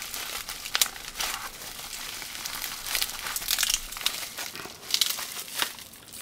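Bubble-wrap packaging crinkling as it is handled, with irregular sharp crackles.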